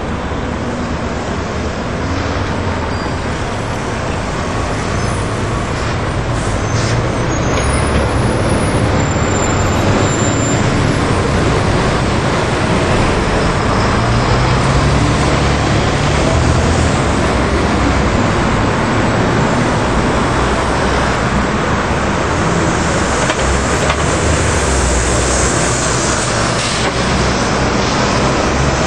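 Street traffic: double-decker buses and cars passing and idling in a queue, their diesel engines running steadily, with one bus pulling away close by near the end.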